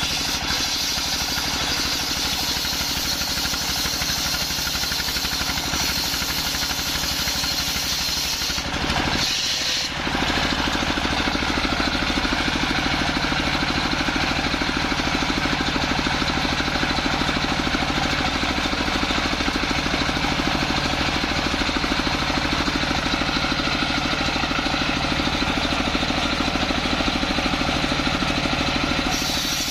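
Horizontal single-cylinder diesel engine running steadily, belt-driving a circular saw blade that is ripping a coconut log lengthwise. The sound breaks off briefly about a third of the way through, then comes back a little louder.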